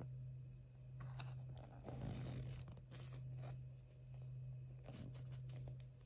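Faint crinkling and rustling from hands handling the small toys and their plastic packaging, in uneven bursts from about a second in, loudest a couple of seconds in, with a few sharp clicks, over a steady low hum.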